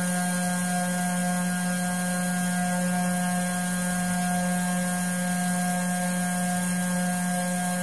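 Powered gyroscope rotor spinning at a steady speed, a constant low hum with several fainter higher tones above it.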